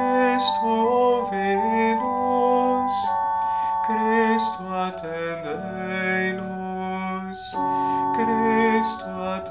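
A man singing a slow chant-like litany melody over sustained organ-voice chords played on an electronic keyboard, the chords changing every second or two.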